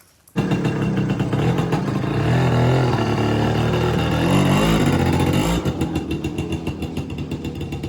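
A small engine running, its pitch rising and falling around the middle, then running steadier and quieter with a rapid even pulse. It starts and stops abruptly.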